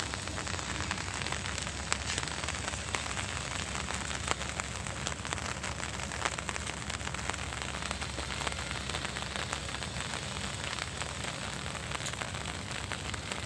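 Rain falling steadily on garden plants: an even hiss with many small ticks of drops striking leaves.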